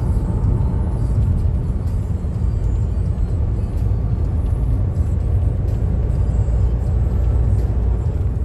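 Car travelling along a highway: steady low road and engine rumble.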